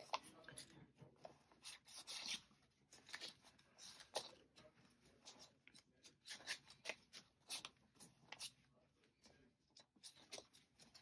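Faint rustling and crinkling of paper banknotes and envelopes being handled, as a string of short, irregular rustles and taps.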